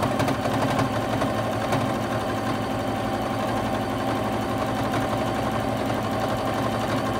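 Juki HZL-F600 domestic sewing machine running steadily at speed, its needle stitching rapidly and evenly while the quilt is moved freely under it in free-motion quilting.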